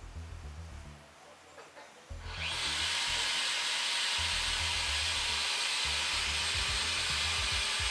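Handheld power tool switched on about two seconds in, spinning up with a short rising whine, then running steadily.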